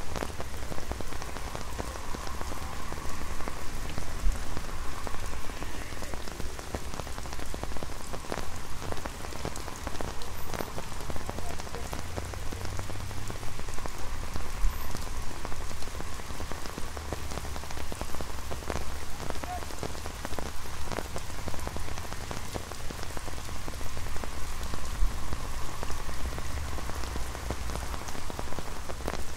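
Rain pattering on an umbrella overhead: a steady dense patter with scattered louder single drops tapping on the canopy, over a low rumble.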